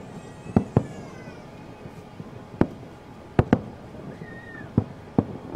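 Fireworks going off at a distance: about seven sharp bangs with a short echo, irregularly spaced, some in quick pairs.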